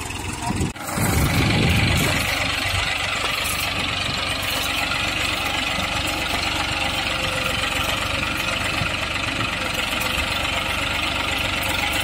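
Massey Ferguson 241 DI tractor's three-cylinder diesel engine running steadily while pulling a plough through soil. The sound breaks off briefly just under a second in, then runs on evenly.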